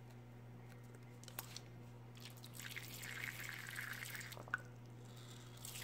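Water squirted from a squeezed plastic craft squeeze bottle into a plastic bowl: a faint hissing stream for about two seconds from midway, followed by a short tick.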